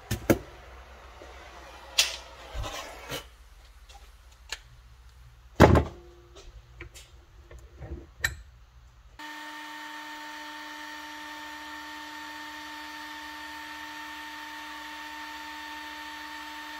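Workbench handling noises: a few sharp knocks and clacks, the loudest about six seconds in. From about nine seconds in, a steady hum with a clear pitched tone.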